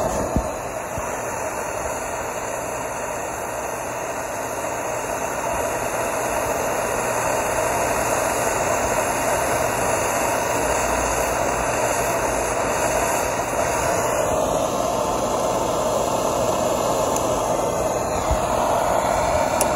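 Propane torch burning with a steady hiss, its flame heating a ball bearing so that it expands enough to slip onto a chilled shaft.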